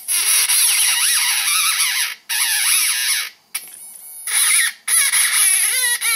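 A small electric motor spins the moving parts of a DIY robot sound-making mechanism. It gives a noisy mechanical buzz with warbling whistle-like pitches that rise and fall, a kind of machine babble meant as a robot's speech. The sound comes in several bursts, starting and stopping every second or so.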